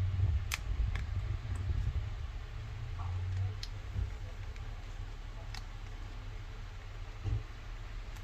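A few sharp clicks and ticks of plastic pry tools working an iPhone 13's display loose from the frame, over a steady low hum.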